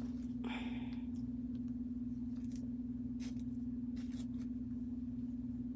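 Steady low hum in the room, with a short soft scrape about half a second in and a few faint ticks: a trading card being worked into a tight plastic sleeve.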